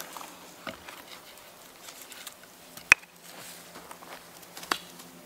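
Knife and food being worked off a wooden spit onto a wooden plate: quiet handling with light ticks and two sharp clicks, one about three seconds in and one near the end.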